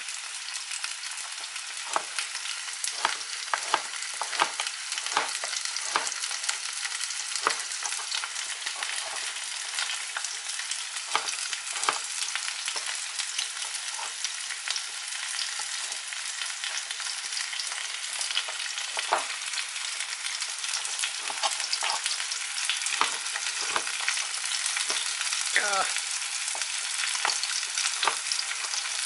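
Kitchen knife slicing zucchini on a cutting board: irregular sharp clicks as the blade meets the board, over a steady sizzle of food frying in oil.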